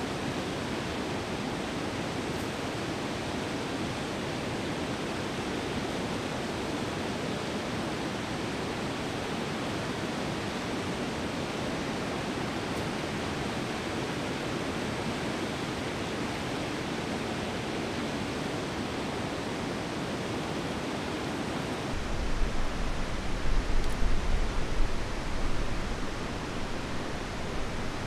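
Steady rush of river water, an even hiss with no distinct events. About 22 seconds in, a low uneven rumble joins it and then eases off near the end.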